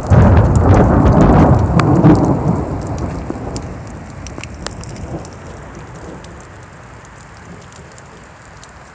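Thunder rumbling loudly right at the start, heaviest for the first two seconds or so and then rolling away and fading over the next several seconds, with rain falling and drops ticking throughout.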